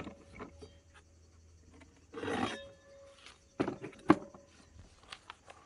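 Metal artillery cartridge cases being handled on a wooden ammunition crate: a few scattered knocks and a short scrape, the loudest knocks about four seconds in, some followed by a brief metallic ring.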